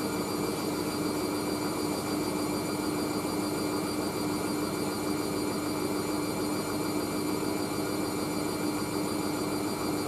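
Hoover AAA160 Whisper 1600 washing machine on an intermediate spin at about 400 rpm: a steady motor whine and drum hum at an even speed. The machine runs stably, with only slight shaking and nothing excessive.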